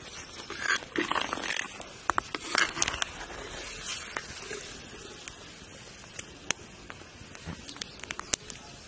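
Steel skimmer ladle stirring and scooping meat in a pot of steaming liquid, over a steady hiss. A flurry of scraping knocks and clinks against the pot comes in the first three seconds, then scattered sharp clicks.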